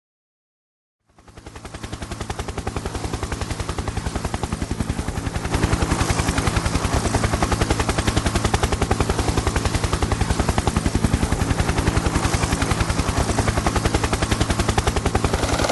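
Helicopter main rotor chopping in a fast, even beat over a steady engine drone, starting about a second in and growing louder about five seconds in.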